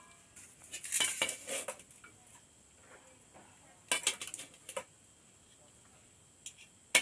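Metal utensils clinking and scraping against cookware in short bursts: one about a second in, another about four seconds in, and a single sharp clink at the very end.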